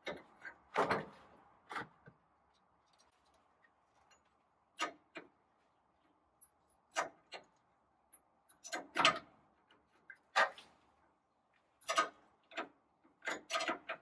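Irregular sharp clicks and knocks, about fifteen of them, some in quick clusters, from hand work with tools and parts during a power steering hose replacement.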